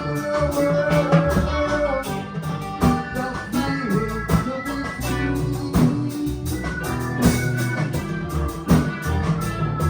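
A live band playing a song, with electric guitar and bass over a steady drum-kit beat.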